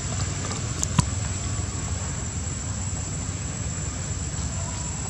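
Steady background rumble and hiss, with a thin high steady whine above it and a single short click about a second in.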